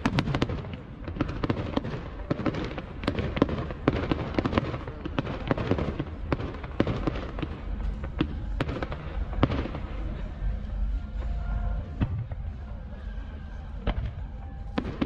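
Fireworks display: a rapid string of shell bursts and sharp bangs, closely packed for about the first ten seconds, then thinning to occasional bangs.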